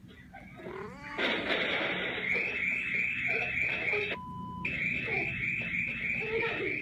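Electronic alarm warbling over a hiss, its tone repeating about four times a second, broken briefly past the middle by a short steady beep, heard through a tablet's small speaker.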